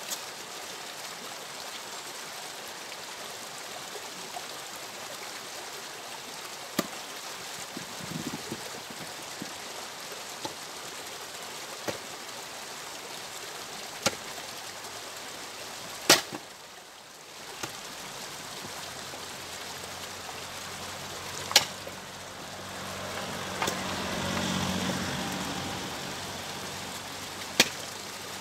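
Axe splitting firewood rounds on a chopping block: a sharp crack every few seconds, about half a dozen strikes, over a steady rushing background. A low hum swells and fades near the end.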